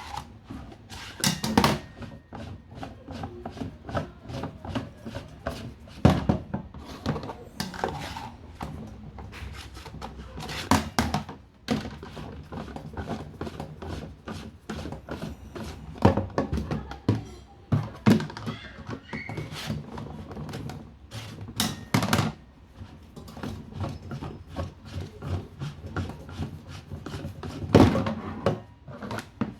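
Reverse osmosis filter housings and cartridges being unscrewed and handled: irregular knocks, thunks and rubbing of hard plastic parts.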